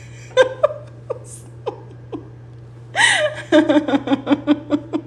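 A woman laughing: a few short giggles in the first two seconds, then a burst of laughter about three seconds in that runs on as quick, even 'ha-ha-ha' pulses.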